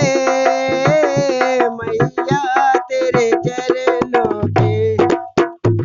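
Dholak playing a fast rhythmic pattern, with sharp slaps and deep bass-head strokes about four to five seconds in, over a held melodic tone.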